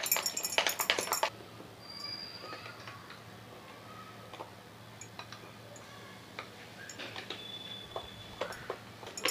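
A spoon stirring thick gram-flour batter in a glass bowl, clinking and scraping against the glass: quick busy strokes for about the first second, then slower, softer scattered taps.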